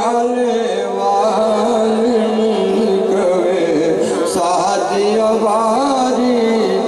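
Male voice singing a devotional naat, an ornamented, wavering melodic line over a steady sustained drone.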